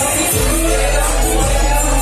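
Loud dance music playing, with a deep bass line dropping in about half a second in and a rising sweep above it.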